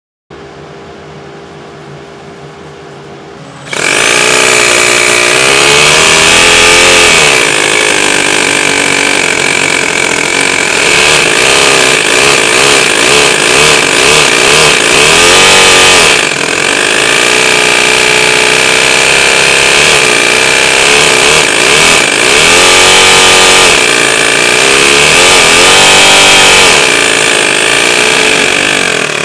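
Toyan miniature two-cylinder four-stroke model engine with a belt-driven centrifugal supercharger blowing through its carburettor: a quieter steady hum at first, then about four seconds in the engine is running loud, revved up and down several times over a steady high whine. The larger supercharger pulley is giving it some boost.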